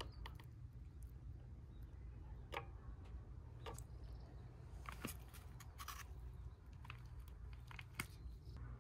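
Scattered light clicks and knocks, a few a second and irregular, over a steady low rumble.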